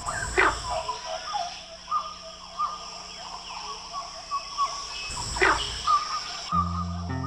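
Frogs calling at night in a chorus of short, repeated notes, with a few louder sweeping calls, over a steady high insect trill. Plucked guitar music comes in near the end.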